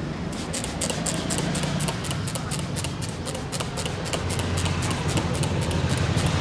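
A barber's hands striking rapidly in a percussive massage: quick slaps, several a second, in a steady rhythm. Under them runs a steady low rumble of street traffic, growing louder near the end.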